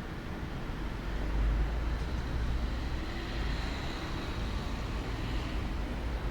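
Outdoor ambience of road traffic: a steady low rumble of passing vehicles, with a faint high tone drifting in about halfway through.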